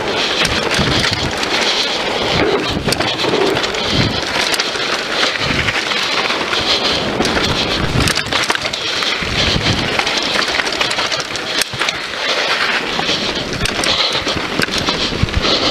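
Wind rushing over an action camera's microphone during a fast downhill mountain-bike run, with the Scott Voltage FR 730's tyres rolling over a dirt trail and the bike's chain and parts clattering and clicking over bumps.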